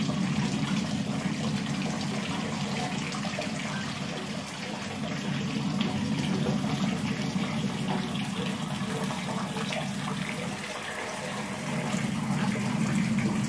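Steady rushing noise with a strong low rumble, swelling slightly near the end.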